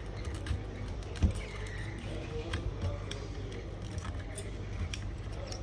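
Hot air gun blowing with a steady low hum, under scattered small clicks and scrapes as a metal pry tool chips shattered back glass off an iPhone 12 Pro; the sharpest click comes just over a second in.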